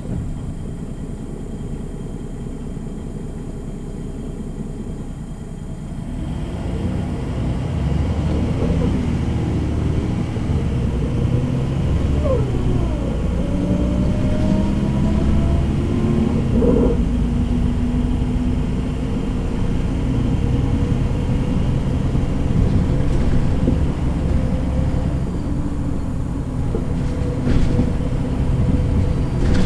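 MAN NG 313 articulated bus's diesel engine and ZF gearbox running. It grows louder about six seconds in, its pitch glides up and down through gear changes a few seconds later, then it settles into steady running.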